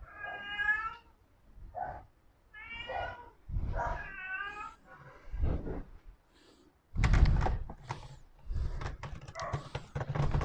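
A cat meowing three times, each a pitched, arching cry, in the first half. Then, from about seven seconds in, a run of knocks and clatter from the sorbetes churn's dasher and metal canister being handled.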